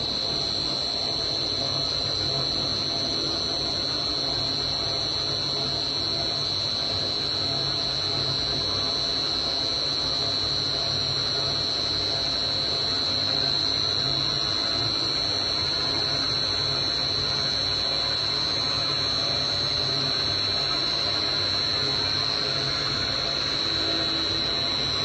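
A 100-litre double sigma (Z-blade) kneader mixer and its discharging screw running steadily at maximum speed, their motors humming under a constant high-pitched whine.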